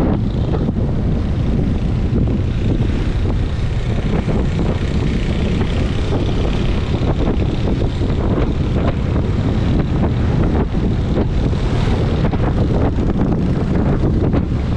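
Steady heavy wind rumble on the microphone of a camera travelling on a moving road vehicle, with road and engine noise underneath.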